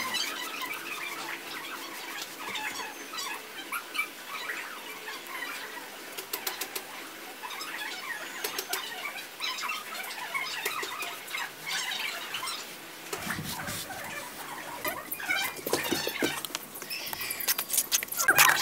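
Irregular rustling, crackling and small clicks of hands handling craft materials, getting louder and busier near the end.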